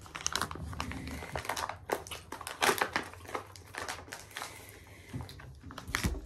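Plastic wrapper of a crab stick crinkling as it is handled and peeled open by hand, with a dull knock near the end.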